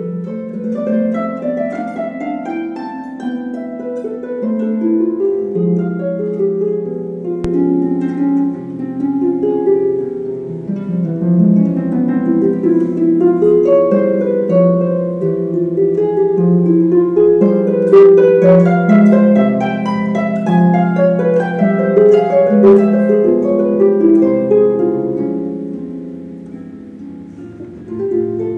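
Solo concert harp playing a slow piece: plucked notes that ring on and overlap, mostly in the lower-middle range, growing quieter near the end.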